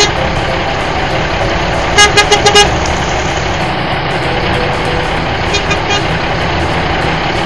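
Steady truck engine rumble with a horn tooting about five times in quick succession about two seconds in, and twice more, fainter, near six seconds.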